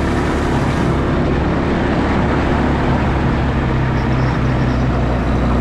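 Car tyres crunching over icy snow as the car drives along, with the engine's steady hum underneath.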